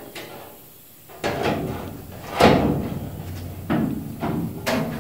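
Aftermarket sheet-metal front fender clunking and knocking against a 1966 Ford Bronco's body as it is hung in place. It makes a series of sudden knocks, each with a short metallic ring, starting about a second in; the loudest comes near the middle.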